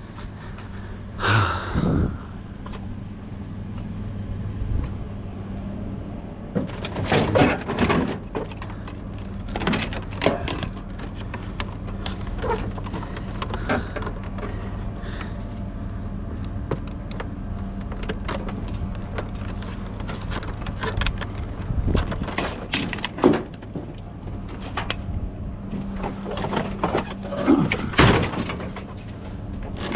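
Scattered clanks, knocks and cracks of scrap metal being handled and broken apart, in bursts, over a steady low hum.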